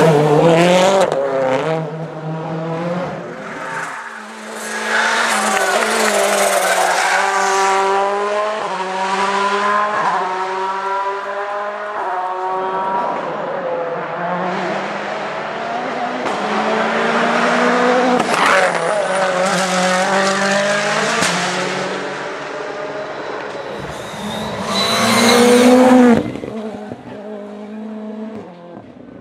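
Turbocharged four-cylinder World Rally Cars, among them an M-Sport Ford Fiesta RS WRC, accelerating through tarmac rally corners, their engine pitch rising and dropping again and again with the gear changes as cars pass one after another. The loudest pass comes near the end, then falls away.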